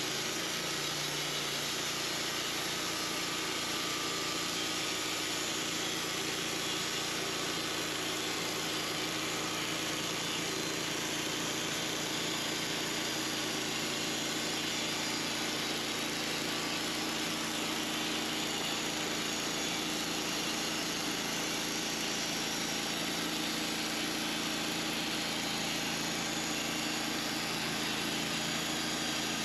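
An engine running steadily at one constant speed, with no revving or load changes.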